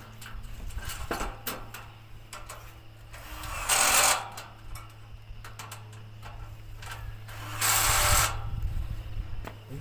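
Power drill working on the metal frame of a solar water heater stand in two short bursts, about four seconds apart, with light metal clinks in between over a steady low hum.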